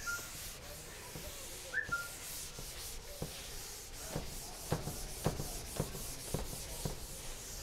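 Chalkboard duster wiping chalk off a blackboard: a dry scrubbing rub, with a run of short, distinct strokes in the second half.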